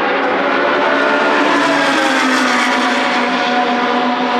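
Historic racing car engine at high revs passing at speed. It is loudest about halfway through, and its pitch drops slightly as it goes by.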